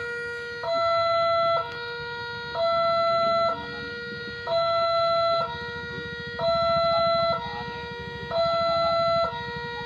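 Railway level-crossing warning alarm sounding an electronic two-tone signal, switching evenly between a low and a higher tone about once a second, warning that a train is approaching.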